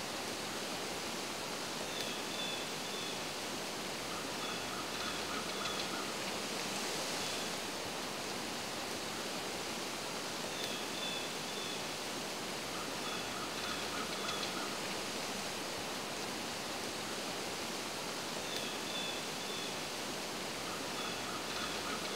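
Steady outdoor woodland hiss, with faint bird calls recurring every few seconds: a few short high notes and a lower trill.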